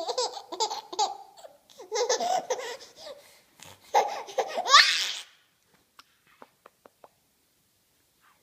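Baby laughing in three bursts of giggles over about five seconds, the last rising into a high squeal.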